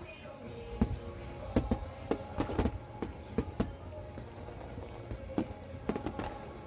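Fireworks bursting in an irregular run of sharp bangs, bunched about a second and a half in and again near the end, over steady background music.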